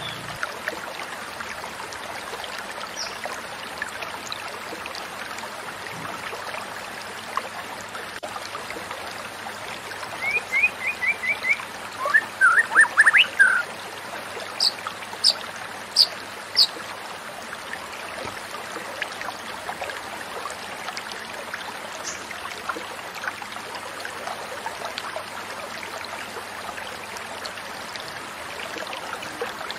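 Steady babbling of a flowing stream, with a few short runs of quick bird notes near the middle: a fast string of about five notes, a denser burst of notes just after, then three or four high single notes.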